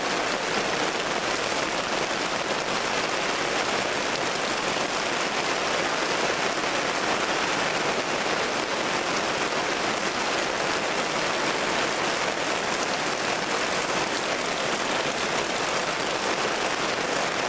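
Steady rain falling: a dense, even hiss of drops with no breaks.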